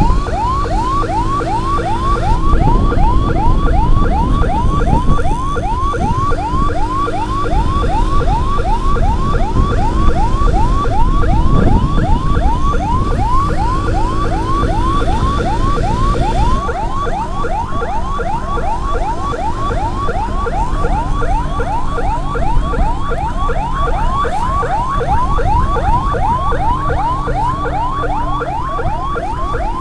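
Emergency-vehicle electronic siren sounding a fast yelp, about three falling sweeps a second, without a break, over the low rumble of wind and traffic on a moving motorcycle.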